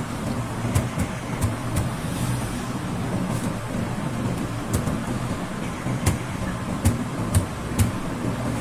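Laptop key or touchpad clicks, about nine short sharp taps at irregular intervals, as the results page is refreshed. Under them runs a steady rushing background noise with a low rumble.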